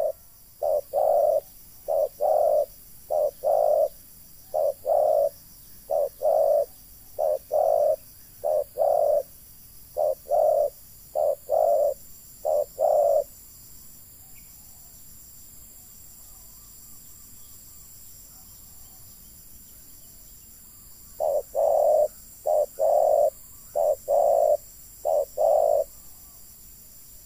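Spotted doves cooing: a run of short, low, repeated coos in small groups. The coos stop about halfway through for several seconds, then another run starts near the end.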